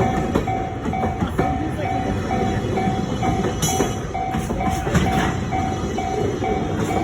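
Japanese level-crossing warning bell ringing steadily at about two strikes a second. A container freight train rolls past over a steady rumble, its wheels clacking over rail joints.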